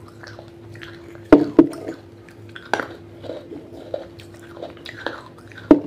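Teeth biting into and crunching pieces of a wetted terracotta clay pot. Sharp cracks, two close together about a second and a half in, another near three seconds and one near the end, stand out among softer chewing crunches.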